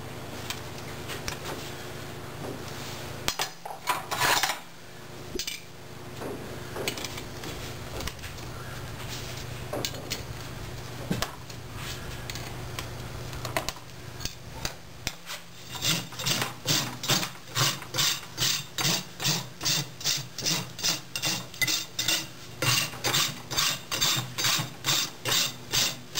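Farrier's rasp filing a horse's hoof in even back-and-forth strokes, about two a second, settling into a steady rhythm a little past halfway. Before that there are a few scattered scrapes over a steady low hum.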